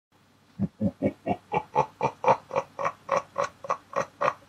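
A long, drawn-out laugh: a steady run of "ha"s at about four a second, starting deep about half a second in and climbing in pitch.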